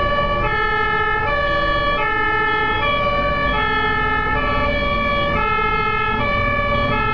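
German ambulance's two-tone siren (Martinshorn) sounding steadily, switching back and forth between a higher and a lower pitch about every three-quarters of a second, over the low rumble of motorway traffic.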